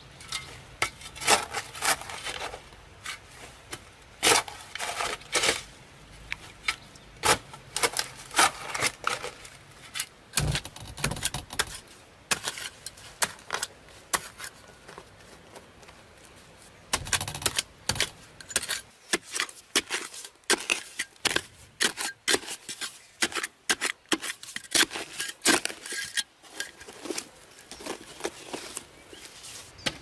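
Bamboo being worked by hand: a long run of sharp, irregular knocks and clacks with short pauses, and a couple of heavier low thumps about ten and seventeen seconds in.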